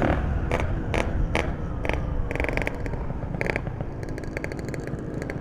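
Ported Yamaha RX King two-stroke motorcycle on the road: its loud engine note drops away right at the start as the throttle closes, leaving a low rumble with a series of short, sharp crackles.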